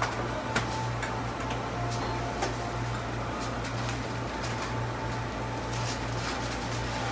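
Restaurant kitchen background: equipment and ventilation giving a steady low hum, with scattered light clicks and clinks from work at the coffee counter.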